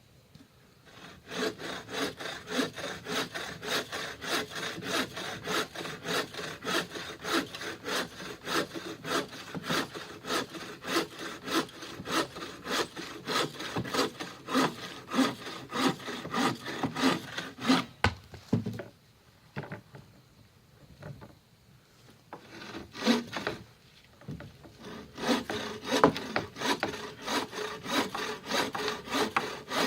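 Wood being cut with a hand saw: steady back-and-forth strokes, with a pause of a few seconds about two-thirds of the way through before the sawing resumes.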